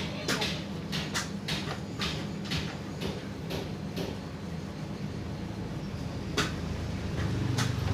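A run of short plastic clicks and knocks as the parts of an electric fan are handled and fitted together, coming about two or three times a second at first and then more sparsely, over a steady low hum.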